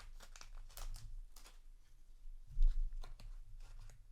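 Foil trading-card booster wrapper crinkling and cards rustling as they are handled, with a soft thump about two and a half seconds in.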